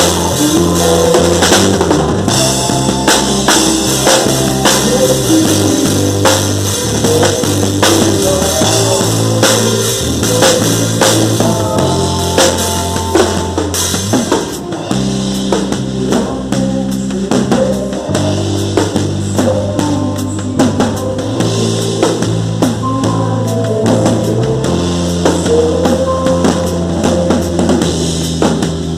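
Band music with a full drum kit (bass drum, snare and cymbals) over sustained bass notes, an instrumental stretch without singing.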